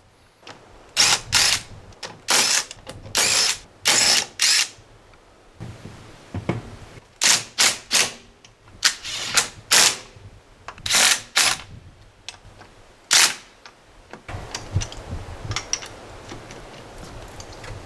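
Impact wrench running in short rattling bursts, a dozen or so, driving the lug nuts while the wheels are changed on a Polaris Ranger 1000.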